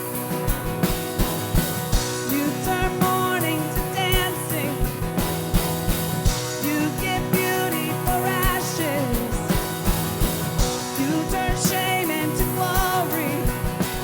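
Live worship band playing a rock-style song: a drum kit keeps a steady beat under sustained keyboard and guitar chords, with a wavering melodic line over the top.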